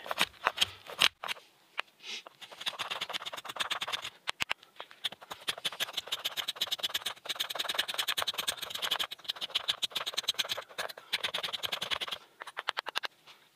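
Spine of a bushcraft knife (BPS Adventurer) scraping fine shavings off a resin-rich fatwood pine stick in rapid, short, repeated strokes, with a brief pause about a second in.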